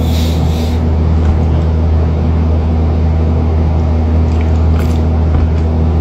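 Steady low droning hum, unchanged throughout, with a short rustle about the first second and a few faint clicks near the end as a plastic bottle is drunk from.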